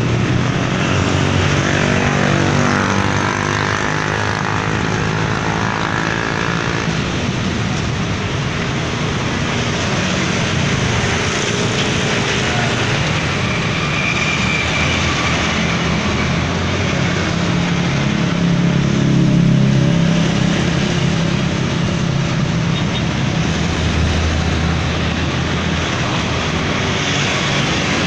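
Busy street traffic, mostly motorbikes with some cars, their engines running as they pass. One passes in the first few seconds with its pitch falling as it goes by.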